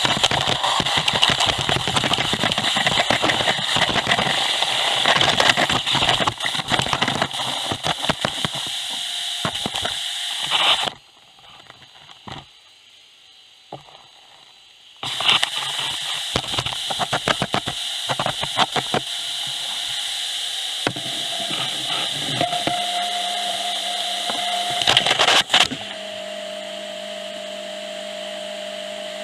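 Industrial gutter vacuum sucking moss and debris through its pole-mounted nozzle: a loud rush of air with rapid rattling and crackling as debris is drawn up the tube. It drops out for a few seconds near the middle, then resumes. In the last several seconds the rattling gives way to a steadier hum with a constant whine, which steps down in level near the end.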